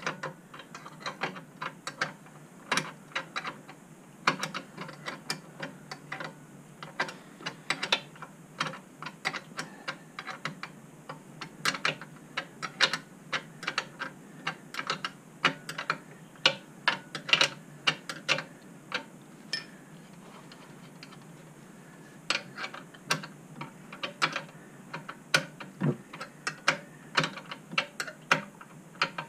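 A ratchet clicking in quick runs as a nut is wound onto a motorcycle mainstand pivot bolt, with a short pause about two-thirds of the way through.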